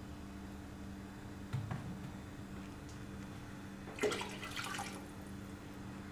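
Water poured from a steel tumbler into a large metal pot of chicken korma, splashing for about a second, some four seconds in. A soft knock comes earlier, about a second and a half in, over a faint steady hum.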